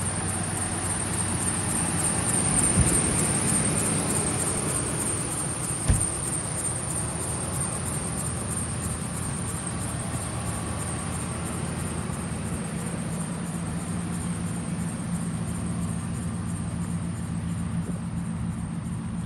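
Ford F-150's 5.4-litre V8 idling steadily, with a swell in level about three seconds in and a single sharp knock about six seconds in.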